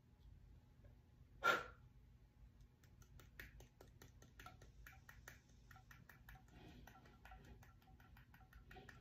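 A brief loud burst of noise about one and a half seconds in, then a run of faint, quick, irregular clicks from a small handheld device being fiddled with, over a faint steady tone.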